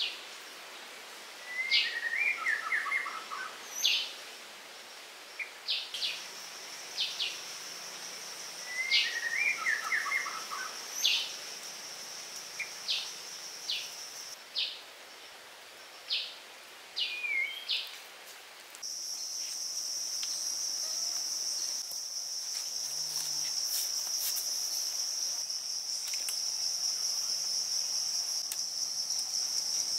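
Forest ambience: a steady high-pitched insect buzz, like cicadas or crickets, that jumps louder about two-thirds of the way through and then holds. A bird calls in the first half with short chirps and two descending phrases.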